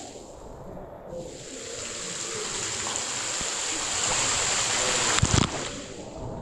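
Water rushing and splashing around a swimmer in a cave creek, growing louder over a few seconds, with a sharp knock about five seconds in.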